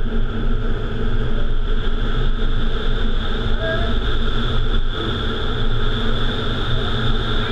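Steady rush of air through an indoor vertical wind tunnel, driven by its fans, heard from inside the flight chamber: a deep constant rumble with a steady high tone above it.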